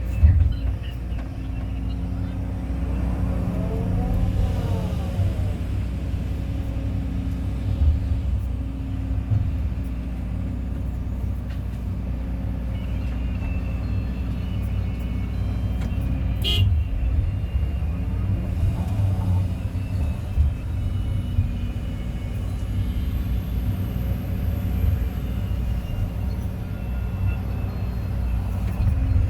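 Kobelco excavator's diesel engine running steadily with a low rumble. A brief whine rises and falls a few seconds in, and there is a sharp click about halfway through.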